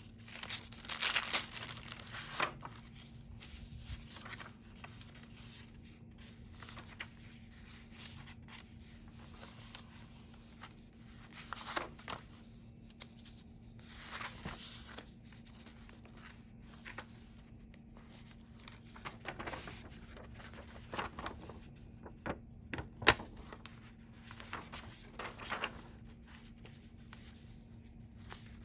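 Pages of a handmade junk journal being turned one after another by hand: dry paper rustling and crinkling as sheets of mixed paper (translucent tracing paper, book pages, old newsprint) are lifted and laid over, loudest about a second in, with one sharp click about two-thirds of the way through.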